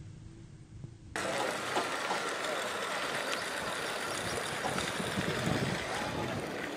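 A quiet low rumble, then about a second in an abrupt switch to a steady outdoor hiss with faint distant voices.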